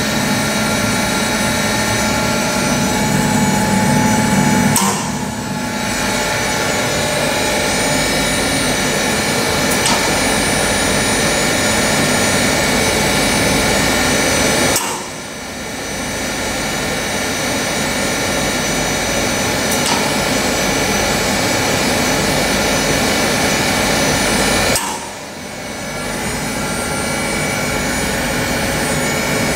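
Powder grinding mill running steadily, grinding coarse cocoa shell powder into fine powder: a loud, dense mechanical noise with several steady whining tones. The noise dips briefly three times, about five, fifteen and twenty-five seconds in.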